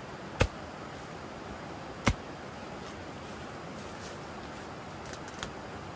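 Two sharp knocks, about a second and a half apart, over a steady background hiss.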